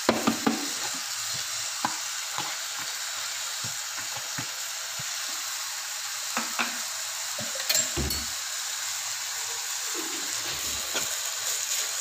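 Steady sizzling of a bolognese base frying in a pot. In the first half-second come a few sharp knocks as a plastic container is shaken and tapped over the pot to tip in diced chicken meatloaf. Scattered clicks follow, and near the end a spoon scrapes as it stirs the mixture.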